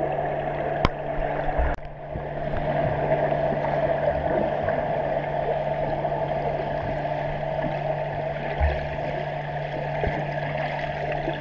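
Front-crawl swimmers churning the water, heard through an underwater camera in a pool: a muffled, steady rush of splashing and bubbles over a low hum. Two sharp clicks come about a second and two seconds in.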